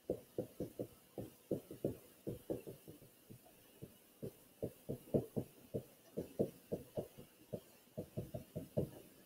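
Faint, dull taps in an uneven run of about three or four a second, the sound of someone writing, the pen strokes knocking through to the microphone.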